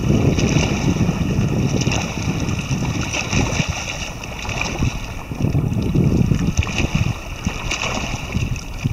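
Wind buffeting the microphone in gusts, over small waves lapping on open lake water.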